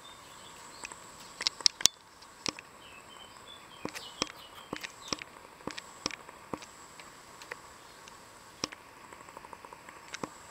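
Kittens' claws and paws scrabbling on a wooden barrel and wagon wheel as they climb: scattered sharp clicks and taps, a few louder knocks about one and a half to two seconds in.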